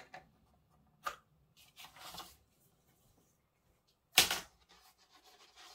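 Pencil and L-square ruler handled on pattern paper: a few light clicks and a soft scratch of the pencil drawing along the ruler, then one loud sharp knock about four seconds in as the square is taken off the paper and set down.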